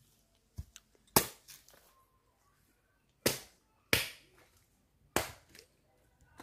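Machete strikes chopping into green coconuts: four sharp hacks at uneven intervals, one about a second in, two close together around three to four seconds, and one past five seconds.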